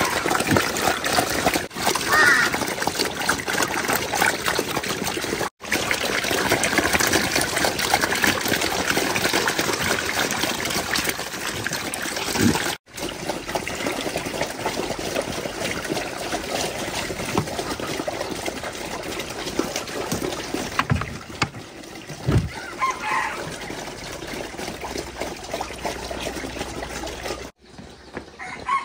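Water running and splashing steadily, broken off abruptly three times, with a chicken clucking briefly a few times in the background.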